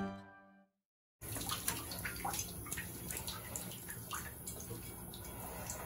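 A music track fades out, and after a short silence, about a second in, water starts splashing and dripping in a bathtub with many small irregular drips and splashes, as water runs off a soaked cat held over shallow water.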